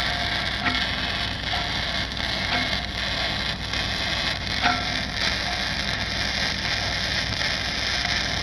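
Shielded metal arc welding with an E6010 electrode on pipe: the arc burns with a steady hiss and faint crackle.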